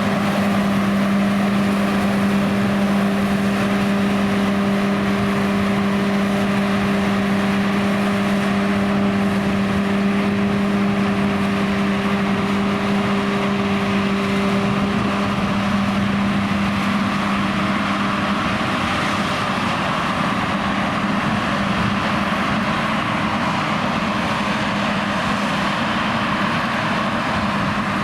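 John Deere X9 1100 combine harvester running steadily while harvesting, its engine and threshing gear making a constant mechanical drone. A steady tone in the drone weakens about halfway through.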